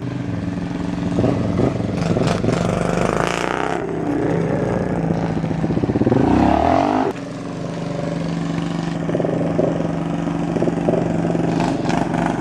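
Quad engines running on a dirt trail. A full-size Suzuki quad passes close about six seconds in, its engine note falling in pitch as it goes by and then dropping away suddenly. A steady engine note carries on behind it.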